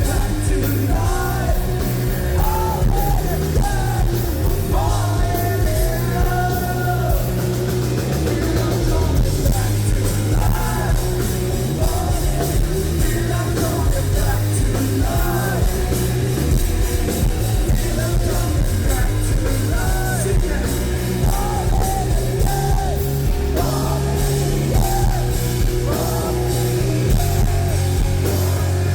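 Live rock band playing a song: heavy guitars, bass and drum kit, with a singer's voice carrying the melody over them.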